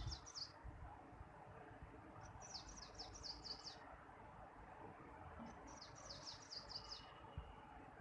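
A small bird singing, faintly: a short phrase of quick, high, down-slurred notes, repeated three times about every three seconds, over a low background rumble.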